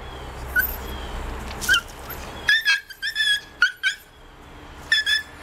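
Shih-tzu whining in short, high-pitched cries, a couple at first and then a quick run of them from about halfway through: a small dog eager to get at the fish held above it.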